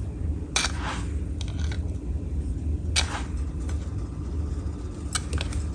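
Metal spoon scooping dry yeast granules from a foil-sealed jar and tipping them into a glass mug of water: a few short scrapes and rustles, with small clicks near the end, over a steady low hum.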